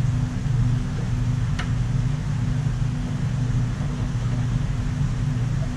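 Steady low machine hum with a constant low drone, from running equipment, with one faint click about one and a half seconds in.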